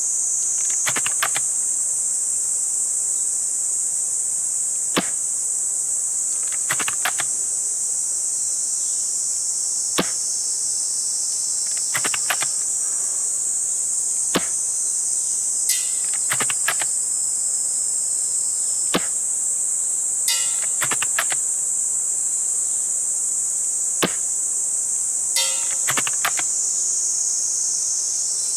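Spring-powered VSR-10 bolt-action airsoft sniper rifle fired five times, about every five seconds, each sharp shot followed a second or two later by a quick clatter of clicks as the bolt is cycled. A steady high-pitched chorus of crickets runs underneath throughout.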